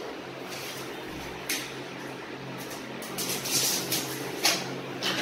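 Wallpaper rustling and scraping in short bursts, a handful of times, as a sheet is pressed and smoothed onto the wall by hand, over a steady low hum.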